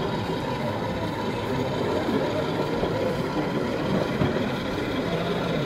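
Steady hubbub of a crowded hall: many voices blending together, with no single word standing out, at an even level throughout.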